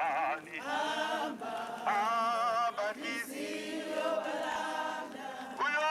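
A crowd of women singing a hymn together in unison, unaccompanied, in sustained phrases with short breaks between them.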